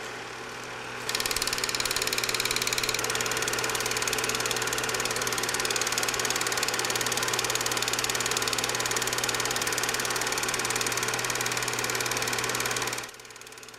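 8mm film projector running: a steady, rapid mechanical clatter of the film advancing, with a low hum underneath. It gets louder about a second in and drops back to a quieter level near the end.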